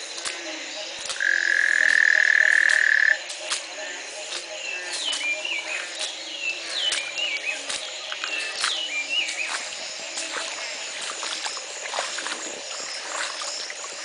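A dense chorus of frogs calling after heavy rain, many overlapping croaks and clicks. About a second in, a loud steady high-pitched note holds for about two seconds, louder than the chorus.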